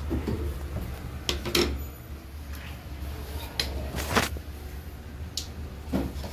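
Scattered knocks and clicks, about half a dozen with the loudest a little past the middle, from parts of an IFB washing machine being handled during a repair, over a steady low hum.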